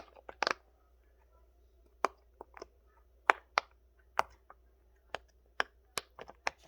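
Bubbles of a silicone pop-it fidget toy being pressed through one at a time: a string of short, sharp pops at irregular intervals, roughly two to three a second.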